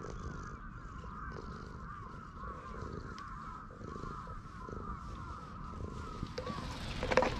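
Tabby cat purring while its fur is stroked, over a steady chatter of many small bird calls. A louder call cuts in near the end.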